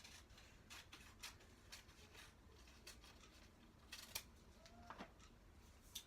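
Faint, irregular snips of scissors cutting small slips of paper.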